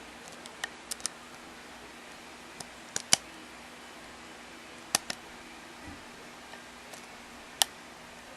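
Lock picking: a pick and tension wrench working the pins of a custom challenge lock, giving scattered small metallic clicks and ticks, the loudest about three seconds in, over a faint steady hum.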